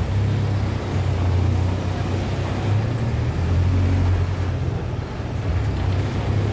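City bus driving, heard from inside the passenger cabin: a steady low engine drone with road noise, swelling slightly a few seconds in.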